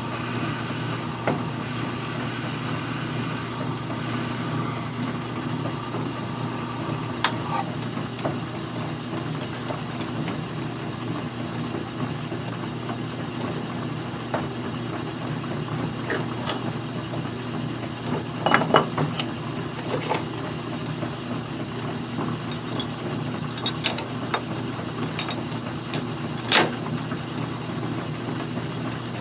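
Metal lathe running steadily. For the first several seconds a twist drill in the tailstock bores into a plastic part with a thin, high whine. Several sharp metallic clicks and clanks follow as drills are handled and changed.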